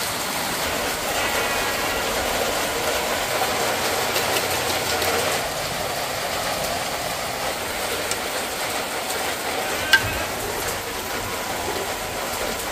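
Heavy rain falling steadily, with one sharp knock about ten seconds in.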